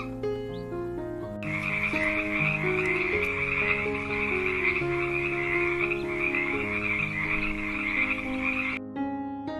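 A dense chorus of croaking frogs that starts about a second and a half in and cuts off suddenly near the end, over soft background music.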